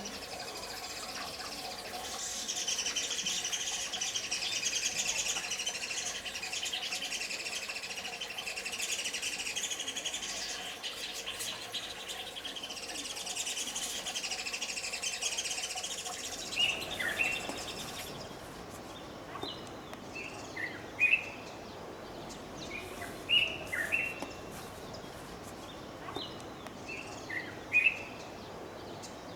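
Wild birds calling: a dense, continuous chorus of high trilling song for a little over half the time, then, after a sudden change, separate short chirps repeated every second or so.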